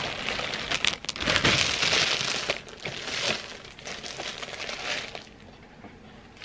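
Plastic bread bag crinkling and rustling as it is opened and handled, loudest about a second or two in, then in weaker flurries.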